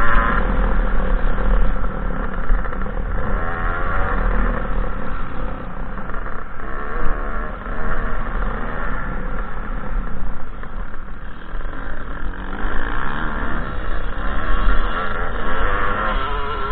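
2007 KTM 300 XC two-stroke dirt bike engine revving up and down as the bike is ridden hard over rough dirt. Wind buffets a helmet-mounted microphone underneath.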